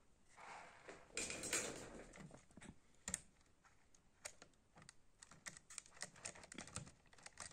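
Small, irregular plastic clicks and taps of a Mehano HO-scale model steam locomotive and tender being handled and set on the track, after a soft scuffing in the first two seconds.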